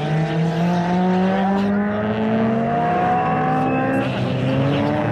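Race car engines, a Honda Civic EG6's high-revving four-cylinder among them, accelerating hard out of a corner. Their pitch rises steadily, then drops about four seconds in and starts climbing again.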